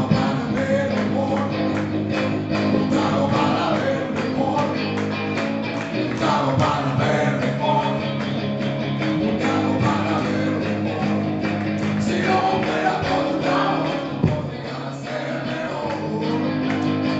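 Live rock music: an electric guitar played loudly over a steady drum beat.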